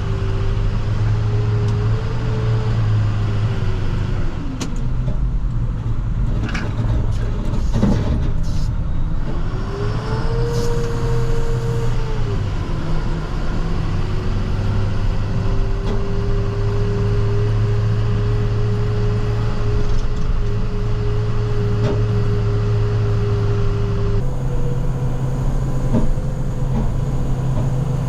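Plow truck's engine running steadily while driving, its pitch rising and falling twice as it changes speed. A few sharp knocks come in the first several seconds.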